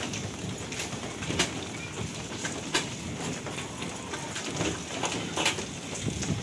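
Rain falling steadily, with scattered sharp ticks of drops landing close by.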